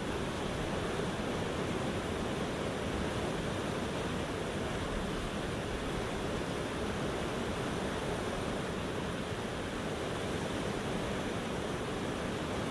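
Steady rush of flowing river water, an even hiss and rumble that holds level throughout.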